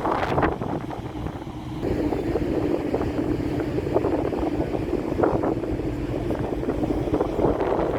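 A ferry's engines droning steadily, with wind gusting across the microphone.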